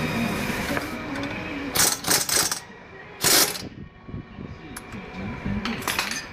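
Mechanical workshop noises, with short loud noise bursts about two seconds in, again at about three and a half seconds, and near the end.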